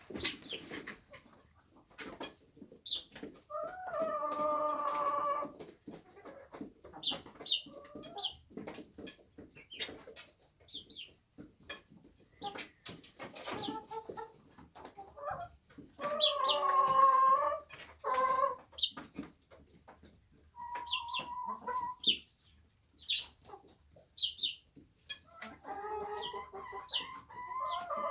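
Young chickens clucking and calling: short high peeps throughout, with several longer drawn-out calls of a second or two, and many short sharp clicks in between.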